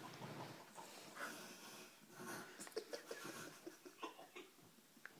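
Faint, wheezy breathing from a person, with a few soft clicks and rustles.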